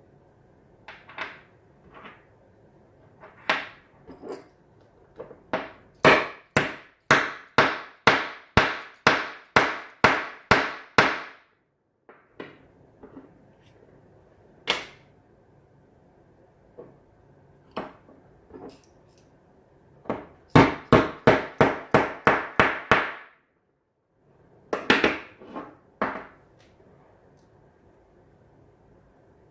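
Hammer blows driving a .308 cartridge through a hand reloading die set: two quick runs of sharp metal taps, about three a second in the first run and about four a second in the second, with scattered single knocks and clicks of the die parts being handled in between.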